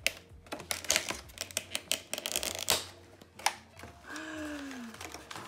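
Thin plastic clamshell plant case being pried open and handled, giving off a quick run of crackles and clicks that dies down about three and a half seconds in.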